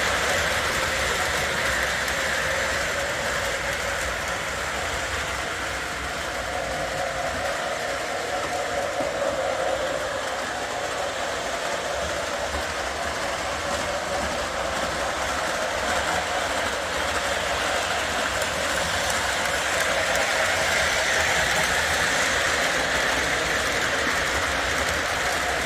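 Weaver U25B O gauge model diesels running on the track: a steady whir of motors and gears with wheel rumble on the rails, growing fainter through the middle and louder again towards the end.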